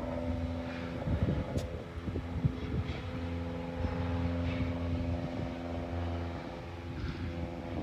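Propeller airplane flying overhead, its engine a steady hum that holds one pitch.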